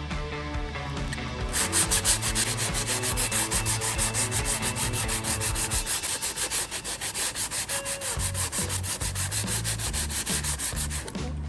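Sandpaper rubbed by hand in quick back-and-forth strokes over a repaired car plastic surface, about four to five strokes a second, starting about a second and a half in and stopping just before the end.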